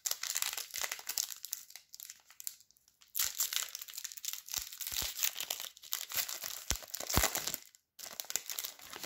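Crinkling and crackling of a trading-card pack's wrapper being handled, in irregular rustling bursts with brief pauses about three seconds in and near the end.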